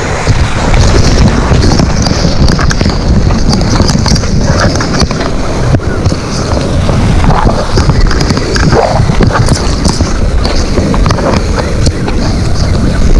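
Wind buffeting the microphone: a loud, continuous rumble.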